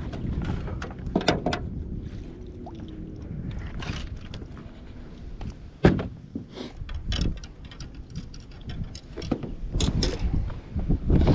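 Scattered knocks and clicks, the sharpest about six seconds in, over a steady low rumble, typical of gear being handled in a small fishing boat.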